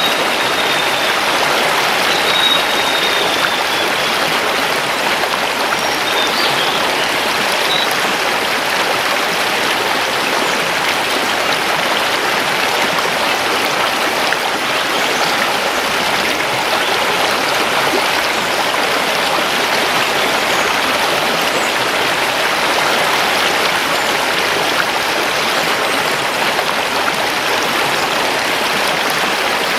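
A mountain river rushing over stones, a steady, even water noise. A few faint, high bird chirps come through during the first several seconds.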